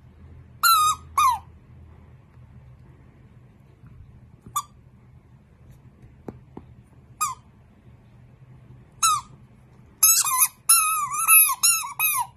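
Rubber squeaky ball squeaking as a dachshund bites down on it, each squeak a short note that falls at the end. A few single squeaks seconds apart, then a quick run of squeaks near the end.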